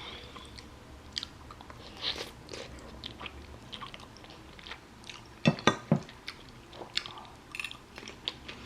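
Close-up mouth sounds of a person eating black bean noodles: chewing with scattered small crunches and clicks. A quick group of three sharper clicks comes a little past halfway.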